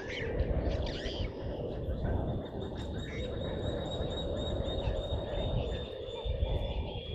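Natural waterhole ambience: quick bird calls in the first second or so, then a steady high thin drone over a dense, continuous chorus and a low rumble.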